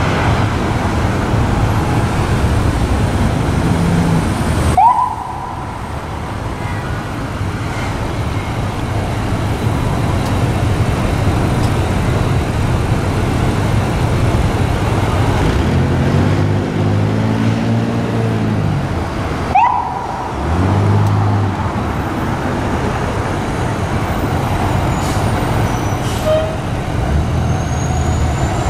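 Fire engine working through heavy city traffic, its engine running under steady road noise. The siren gives two short rising whoops, about five seconds in and again near twenty seconds in. The engine revs briefly around sixteen to twenty-one seconds in.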